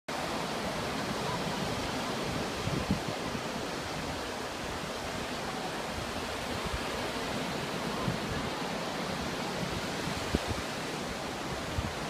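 Steady rush of ocean surf breaking on the beach, with a few brief low thumps.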